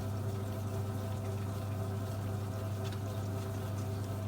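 Toshiba semi-automatic washing machine's wash motor running steadily after the timer is turned to full, a constant low mains hum with water churning in the tub. It shows the newly fitted timer driving the motor properly.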